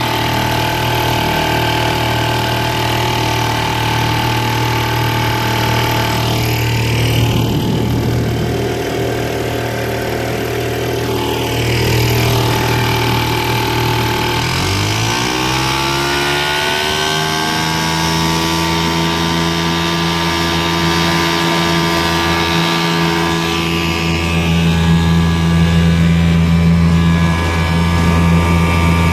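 1960s Eska Golden Jet 5 HP two-stroke outboard motor running under way on its rebuilt carburettor. About halfway through, the revs dip briefly and then climb to a higher steady speed as the throttle is opened.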